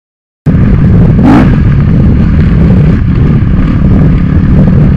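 Dirt bike engine running hard under throttle, heard from on board the bike: loud, with a rough low rumble. It cuts in suddenly about half a second in.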